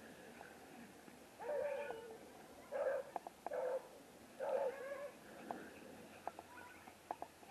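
Silver beagle puppy giving four short, high yelping cries over about three seconds.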